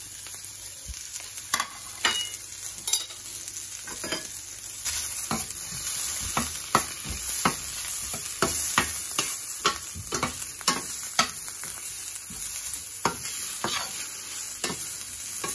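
Sliced onion and minced garlic sizzling in oil in a stainless steel skillet, stirred with a metal slotted spoon that clinks and scrapes against the pan. The spoon strokes come more often from about five seconds in.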